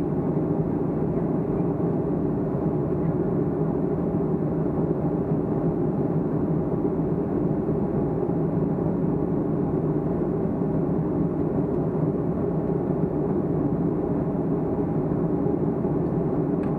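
Steady low drone inside the cabin of a Boeing 757-200 in flight, heard at a window seat: engine and airflow noise that holds an even pitch and level.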